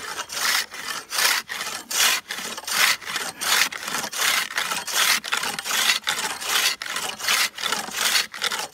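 Hand ice saw cutting through ice, its coarse teeth rasping in steady back-and-forth strokes.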